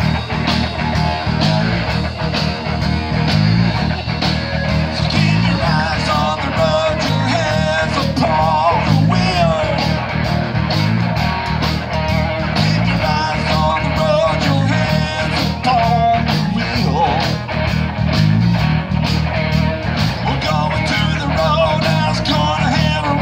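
Live band playing rock and roll: guitar over bass and drums with a steady beat, and a lead melody line that bends in pitch.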